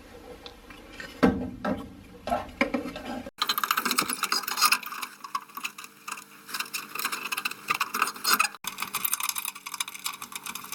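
Light knocks of the furnace inducer motor assembly being fitted into its housing. From about three seconds in, a 1/4-inch drive socket ratchet clicks rapidly and continuously as the mounting screws are driven in.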